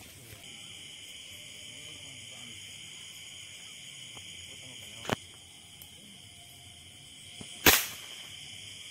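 Steady, high-pitched chorus of night insects such as crickets. A short sharp click cuts through about five seconds in, and a louder sharp crack comes near the end.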